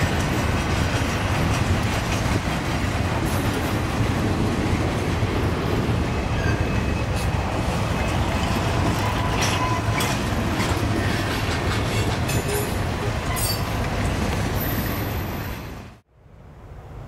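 Freight train passing close by: Norfolk Southern diesel locomotives working under power, then intermodal container cars rolling past with a steady heavy rumble of wheels on rail and a few faint wheel squeals. The sound cuts off abruptly about sixteen seconds in.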